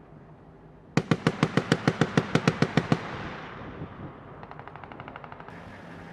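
Vehicle-mounted machine gun firing one long burst of about fifteen rounds, roughly eight a second, with the reports echoing off after it stops. About a second and a half later a fainter, faster burst of around a dozen rounds comes from a more distant machine gun.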